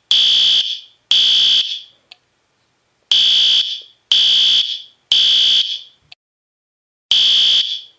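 Fire alarm sounding the temporal-three evacuation pattern: loud, high-pitched beeps about a second apart in groups of three, with a pause of about a second and a half between groups.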